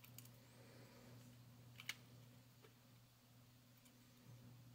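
Flush cutters snipping the copper wire leads of a toroid inductor on a circuit board: a few sharp, quiet clicks, the loudest about two seconds in. A faint low hum sits underneath.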